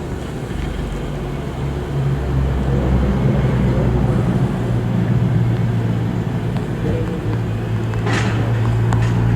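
A vehicle engine running with a steady low hum, and a short hiss about eight seconds in.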